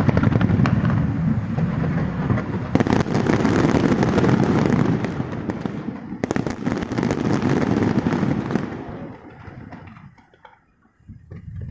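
Fireworks display: a dense barrage of bursts and crackling that dies away about nine seconds in, then starts up again near the end.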